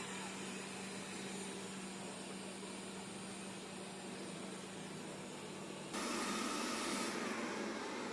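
Xiaomi Mijia G1 robot vacuum running with a steady motor hum. About six seconds in it turns louder and rougher and the hum tone drops away, fitting its carpet boost raising the suction.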